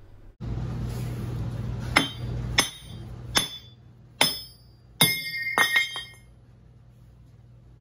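Cordless reciprocating saw cutting through a hollow aluminum extrusion held in a bench vise: a steady buzz for about two and a half seconds, then fading. About seven sharp, ringing metallic clanks of the aluminum follow from about two seconds in, as the cut-off end comes free.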